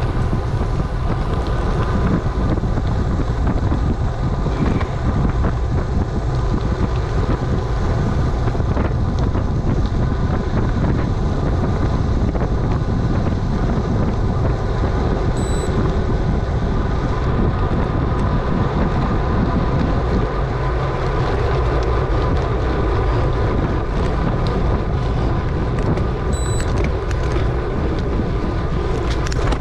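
Wind rushing over the microphone of a camera on a moving bicycle, with tyres rolling on asphalt: a steady, loud, even noise with a faint steady whine.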